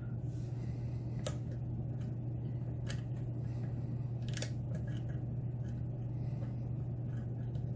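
Light metallic clicks of a lock pick and tension wrench working in a lock's keyway, about half a dozen scattered over several seconds, over a steady low hum.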